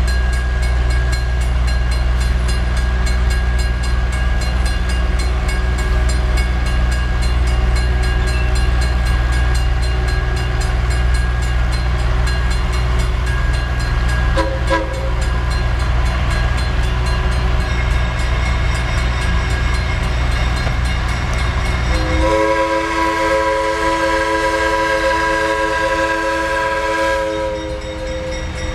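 An approaching diesel switcher locomotive over a steady low rumble; about three quarters of the way through its air horn sounds one long chord, and a second long blast starts just before the end, a typical grade-crossing warning.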